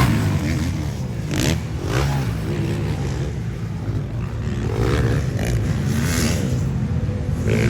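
Motocross bike engines revving, their pitch rising and falling with the throttle, with a few short sharp clatters.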